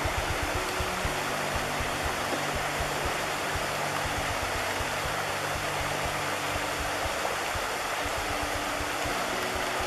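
Shallow rocky river rushing over stones and small rapids, a steady unbroken rushing hiss.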